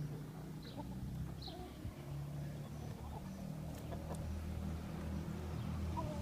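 A low, steady engine hum from a vehicle, growing gradually louder, with a few short, high bird chirps about a second in.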